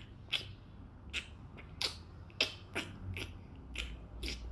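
Eating sounds: a quick, irregular run of short clicks and scrapes, about two a second, as the soup is mixed and eaten.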